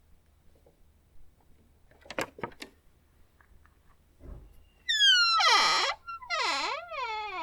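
A few short clicks, then a creaky door's hinges squeal loudly as the door is slowly opened: a long creak that glides down in pitch and back up, followed by a second, wavering creak.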